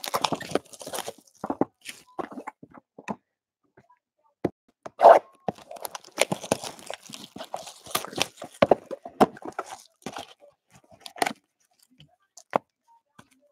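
Cellophane shrink-wrap being torn off a box of trading cards and crinkled in the hands, coming in irregular bursts of crackling with short pauses.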